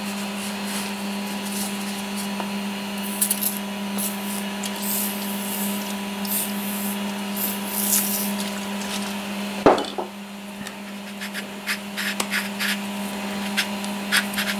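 PB Blaster penetrating oil sprayed from an aerosol can through its straw in several short hissing bursts, over a steady background hum. A sharp knock comes about two-thirds of the way through, followed by light metallic clicks as the steel chuck is handled.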